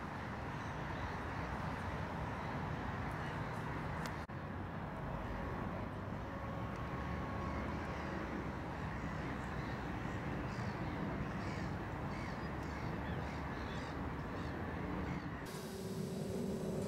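Steady low outdoor rumble with a series of short bird calls over the middle stretch. About fifteen seconds in, it cuts to the inside of a moving vehicle, with its motor sound rising in pitch.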